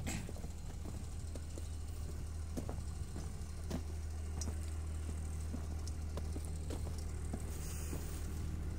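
Diesel dump truck engine idling, a steady low hum with faint scattered clicks over it.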